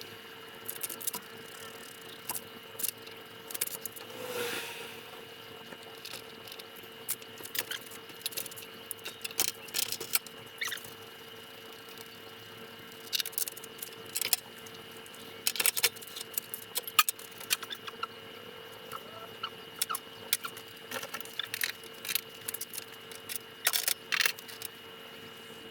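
Hand work on a motorcycle wheel and tyre: scattered small clicks and taps of tools and parts being handled, in irregular clusters, over a faint steady hum.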